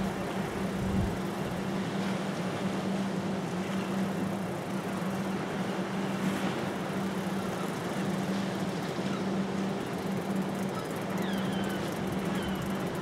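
A steady low engine hum over wind and sea noise, with a few short falling bird chirps near the end.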